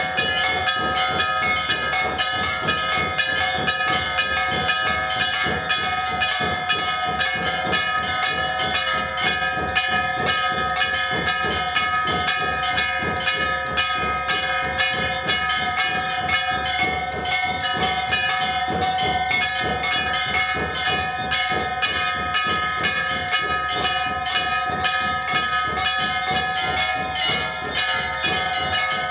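Temple bells rung rapidly and without pause, several steady ringing tones held over a fast clatter of strikes.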